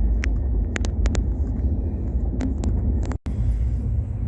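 Moving passenger train's steady low rumble, with scattered sharp clicks and rattles over it. The sound drops out abruptly for a moment about three seconds in.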